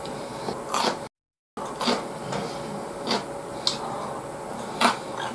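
A man eating a beef bowl with chopsticks from a plastic takeaway bowl: chewing, with five or so sharp clicks and knocks spread through, and a short dropout of all sound just after a second in.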